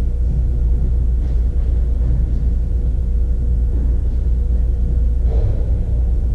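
Steady low rumble with a constant faint hum, with one faint short sound about five seconds in.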